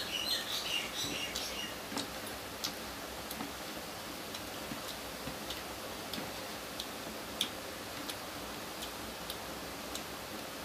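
Sparse, irregular light clicks and taps of eating by hand: fingers working rice against a ceramic plate, and chewing. They sit over a steady background hiss, with a few high chirps in the first second or so.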